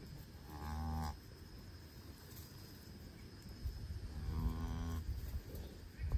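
A heifer lowing twice to her newborn calf: two short, low moos about three and a half seconds apart.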